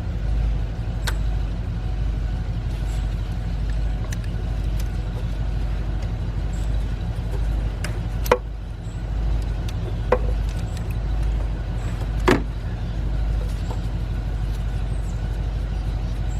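Steady low rumble, with a few sharp clicks and knocks from hands and tools working around the ignition coils in a truck's engine bay; the loudest knock comes about twelve seconds in.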